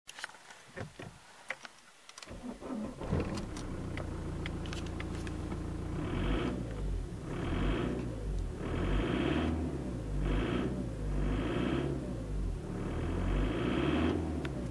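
Opel Vectra B 2.0 DTL four-cylinder turbodiesel started after a few clicks, idling, then revved in about six short bursts from about six seconds in. The owner puts its running down to a seized injection timing advance device in the injection pump.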